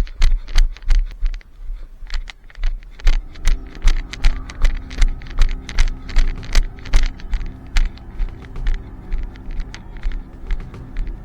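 Running footsteps at about three strides a second, each a sharp thud with a rattle of gear.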